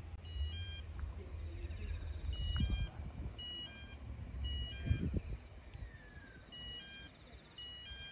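Wind rumbling and buffeting on the microphone, rising and falling, with two short thumps. Over it, short high two-note beeping chirps repeat every second or so.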